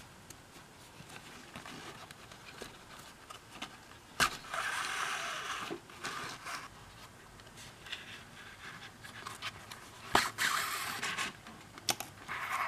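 Thread pulled through stitching holes in leather during hand-stitching: two drawn-out rasping hisses of a second or so, each starting with a sharp click, and a shorter one near the end, with soft handling of the leather in between.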